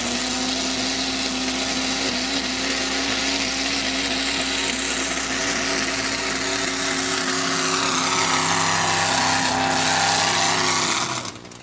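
Modified pulling tractor's engine running hard under load as it pulls down the track, a loud, steady, high-pitched drone that passes close by. It cuts off sharply near the end.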